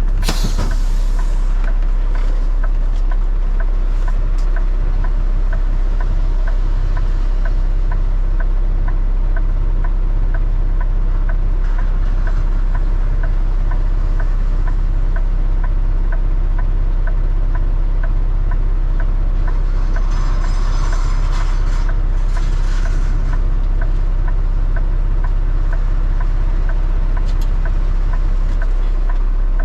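Steady low rumble of a vehicle's engine and road noise heard inside the cab, with a light regular ticking about twice a second.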